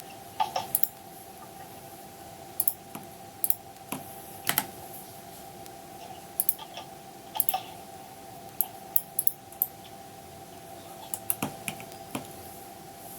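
Computer keyboard keys and mouse buttons clicking in irregular bursts, over a steady hum.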